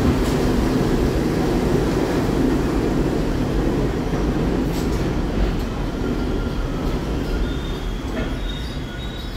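R68A New York City subway train rolling into the station and slowing to a stop, with a dense rumble of wheels and cars that eases off. A thin, high brake squeal comes in over the last few seconds, along with a few sharp clicks.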